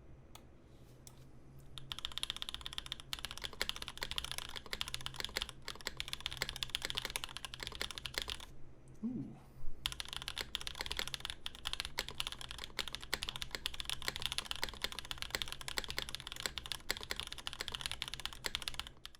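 Fast continuous typing on a custom mechanical keyboard, the CAKE Proto: Raed switches modded with lube and films under GMK keycaps, in a plexiglass case with an O-ring mount. The keystrokes start about two seconds in, break off briefly around eight and a half seconds, then pick up again.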